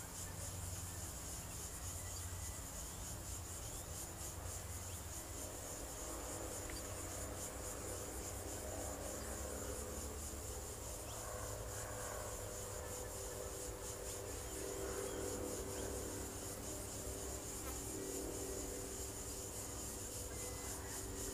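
Insects trilling steadily in a high, fast-pulsing chorus, over a low wind rumble on the microphone.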